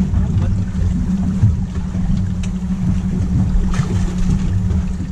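Twin outboard motors idling with a steady low hum, with wind buffeting the microphone.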